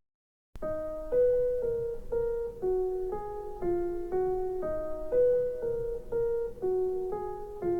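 Music test track played through a wireless speaker: a soft keyboard melody of single notes, about two a second, starting after a brief silence.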